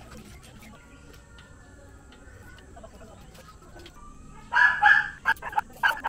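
A burst of several short, loud bird calls starting about four and a half seconds in.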